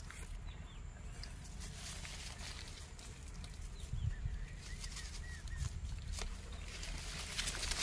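Faint outdoor ambience: soft rustling and light crackles of grass and leaves as a young rhesus macaque picks through them while foraging, with a few faint bird chirps about four to six seconds in.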